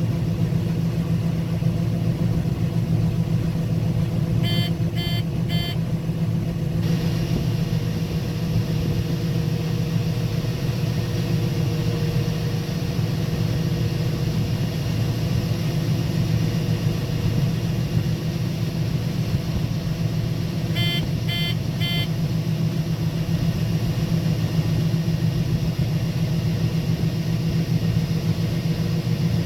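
Combine harvester shelling corn, its engine and machinery running with a steady drone as heard from inside the cab. Twice, a few seconds in and again about two-thirds of the way through, a quick run of three short high beeps sounds, and a higher hiss joins the drone about seven seconds in.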